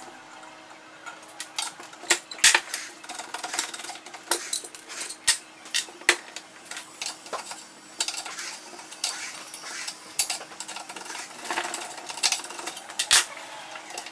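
Metal hand tool clinking and clicking against a scooter deck's rear brake hardware as the brake is unbolted: irregular sharp metallic clicks, a few of them louder knocks.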